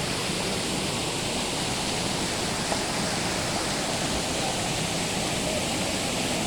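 Steady rushing of a waterfall's falling water, an even, unbroken noise.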